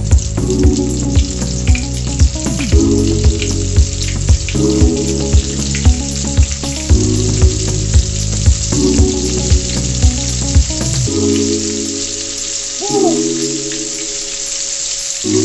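Flour-battered fish fingers deep-frying in hot oil in a stainless steel pot, a steady crackling sizzle. Background music with a steady beat plays over it, and its drums and bass drop out about two-thirds of the way through.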